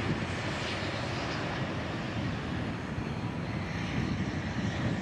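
Jet engines of a Boeing 777 twinjet as it lands on the runway: a steady, low rumble of jet noise.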